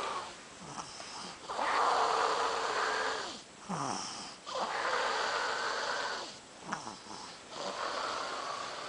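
A sleeping person snoring: three long breaths, each about two seconds, coming roughly every three seconds.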